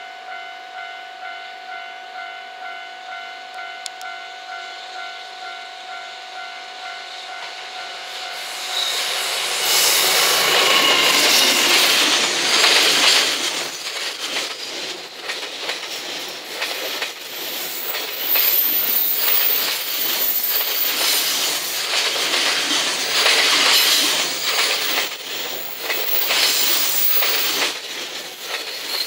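An EF210 electric locomotive hauling a 26-car container freight train passes close by: the noise rises sharply about nine seconds in as the locomotive arrives, then the container wagons' wheels keep up a steady clatter and rumble on the rails, with brief high squeals. Before it arrives, a pitched ding repeats about twice a second.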